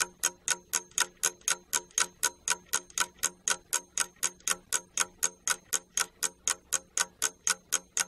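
Clock ticking sound effect, a steady even run of sharp ticks at about four a second, counting off the time given for a task.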